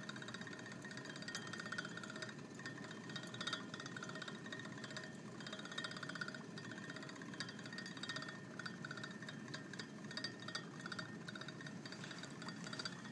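Dry ice bubbling in a beaker of water: a steady rapid crackle and gurgle of bursting bubbles.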